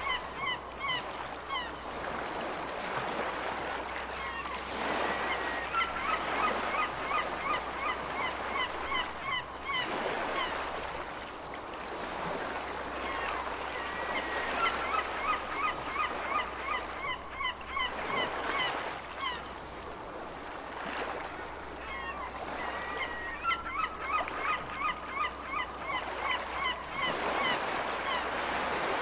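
Gulls calling in quick runs of short, repeated cries, coming in several bouts, over a steady wash of ocean waves.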